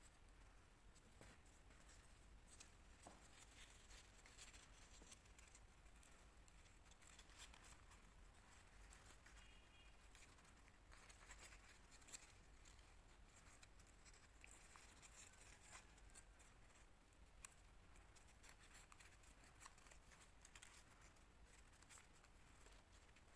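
Faint, irregular crinkling and rustling of origami paper being folded and creased by hand.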